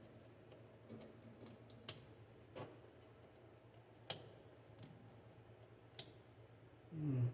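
Sparse sharp clicks and taps from handling hoses and small parts, the three loudest about two seconds apart, over a steady low hum. A short low sound falling in pitch comes near the end.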